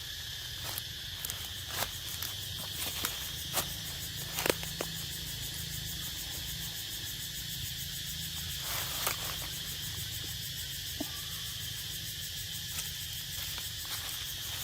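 Steady chorus of insects (crickets) with a high buzzing band, interrupted by scattered sharp clicks and snaps, the loudest about four and a half seconds in.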